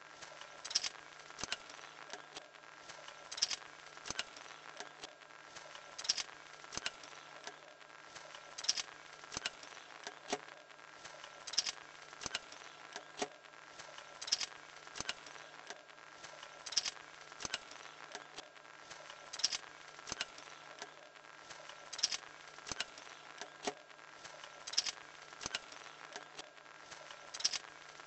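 Homemade drawing machine at work: its small electric motor hums steadily while the wooden-stick linkage holding the pencil clicks and rattles. A pair of louder clicks comes about every two and a half seconds, once per swing cycle of the arm.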